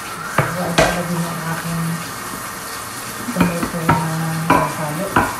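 Metal tray and tin cans knocking on a countertop, several sharp clacks, while a small motor hums steadily in two stretches of about a second and a half each as the cans of whole peeled tomatoes are worked on.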